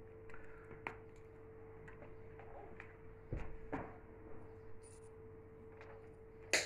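Scattered small knocks and clicks from hands handling tools and cable parts, the sharpest near the end, over a steady faint hum.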